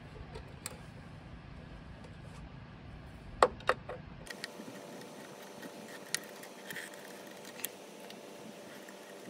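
Handling noise of stranded wire ends being worked by hand inside a metal electrical box, with a few sharp clicks, the loudest two about three and a half seconds in. A low rumble underneath cuts off abruptly near the middle.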